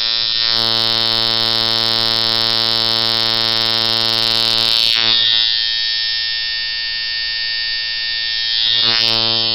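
Stevie Brown spanner-frame coil tattoo machine buzzing steadily on 5 volts, tuned as a long-throw, medium-hit, slow-running packer: quite soft hitting. Its tone thins for a few seconds about halfway through, then fills out again.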